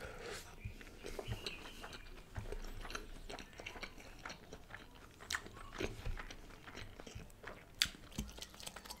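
Close-miked chewing of a mouthful of egg paratha roll: soft, wet mouth sounds and lip smacks, with a few sharper clicks in the second half.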